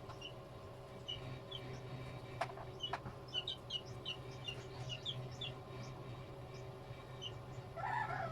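Faint small birds chirping in short, quick high notes, most of them in a run a few seconds in, over a steady low hum. Two sharp clicks come about two and a half and three seconds in, and a brief mid-pitched sound comes near the end.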